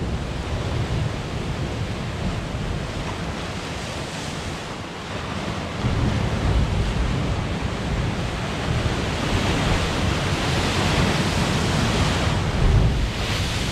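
Sea waves crashing and washing over rocks on a rocky shoreline, with wind rumbling on the microphone. The surf swells about six seconds in and surges loudest near the end.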